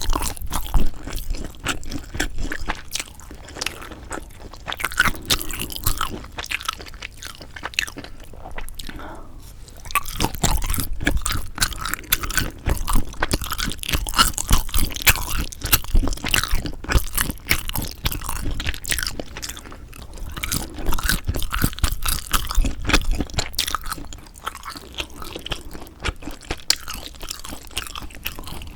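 Close-miked chewing and biting of sundae (Korean blood sausage): a dense run of small mouth clicks and crunches, louder and busier through the middle stretch.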